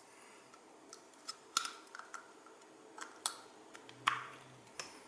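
Sharp plastic clicks and taps, about eight over a few seconds with the loudest about four seconds in, from a power cord plug and its plug adapter being handled.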